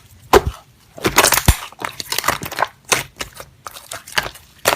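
Slime being squeezed and pressed by hand, giving a string of sharp, irregular crackles and pops.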